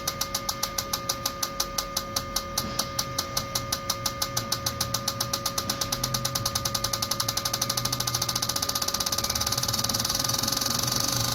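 Four Honda Vezel GDI fuel injectors clicking as they fire on an injector test bench, over a steady whine from the machine. The ticking speeds up from about five clicks a second to a fast rattle near the end as the bench sweeps the simulated engine speed upward.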